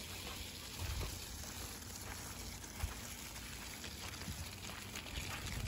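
Steady outdoor background noise with a single faint knock just under three seconds in.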